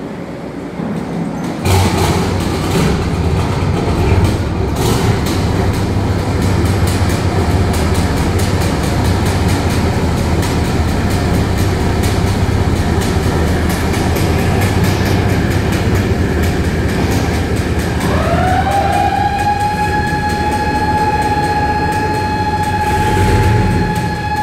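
Lifeboat's diesel engines starting about two seconds in and then running steadily with a deep hum. Near the end a warning siren winds up in pitch and holds one steady note over the engines.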